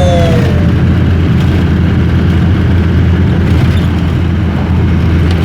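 Rastrojero pickup's engine running at a steady speed with a low drone, as the tail of a sung song fades out about half a second in. The sound cuts off abruptly at the end.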